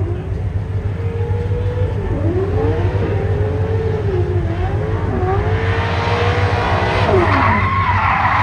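Drift car's engine being revved up and down hard through a slide, its pitch swooping again and again and getting louder as the car comes closer. Tyre squeal builds over the last couple of seconds.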